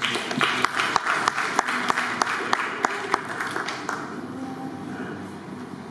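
Audience applauding: it starts suddenly, with sharp individual claps standing out, and dies away after about four seconds.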